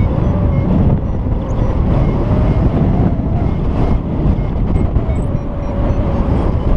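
Wind rushing over the camera microphone in paraglider flight: a loud, steady, low rumbling buffet.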